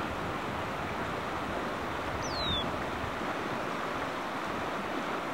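East Fork Carson River water rushing: a steady, even rush, with a short high whistle falling in pitch about two seconds in.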